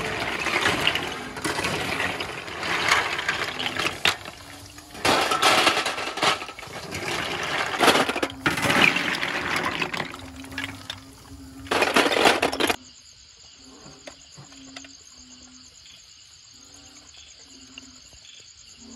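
Cooked snail shells clattering against a wire skimmer and a metal bowl as they are scooped out of the wok and tipped in, in several noisy rattling bursts. These stop suddenly about two-thirds of the way through, leaving insects chirping steadily.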